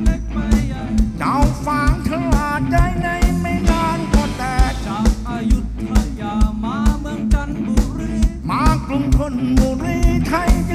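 Live rock band playing: a steady drum beat of about two hits a second under a bass line and a wavering lead melody.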